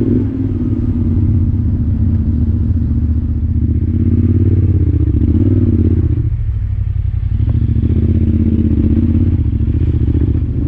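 Yamaha Tenere 700 motorcycle's parallel-twin engine running under way, its revs rising and falling with the throttle and easing off briefly about six seconds in.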